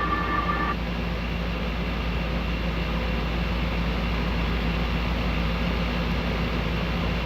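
Steady low rumble of a vehicle on the move, with faint high steady tones that stop under a second in.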